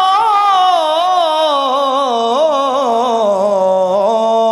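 A man singing a line of Urdu verse in tarannum style, drawing it out as one long wavering note that slides gradually lower in pitch.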